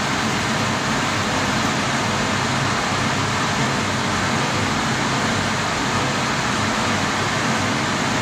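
Steady, unchanging mechanical rushing noise with a faint low hum underneath and no distinct events.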